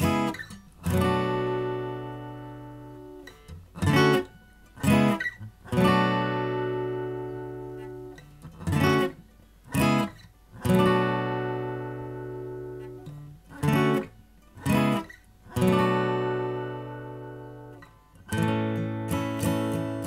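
Acoustic guitar chords strummed and left to ring out for two or three seconds at a time, broken by short, clipped chord stabs. Quicker steady strumming starts near the end.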